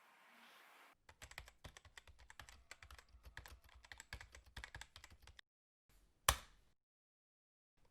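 A rapid run of light clicks for about four seconds, then two single sharp clicks, the first about six seconds in and the second at the very end.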